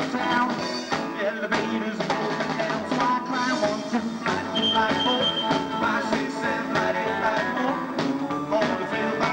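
Live rock and roll band playing a song, with guitar and drum kit.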